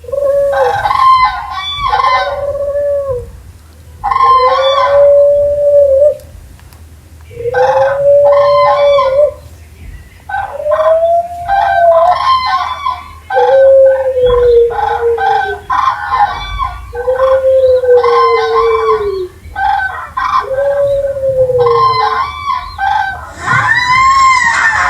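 Sun heron creature sound effect: a series of about nine drawn-out calls, each lasting one to two seconds with a pitch that arches up and then falls, separated by short pauses. The last call, near the end, is higher and brighter than the others.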